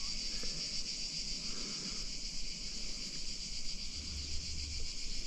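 Cicadas buzzing in a steady, continuous high-pitched drone.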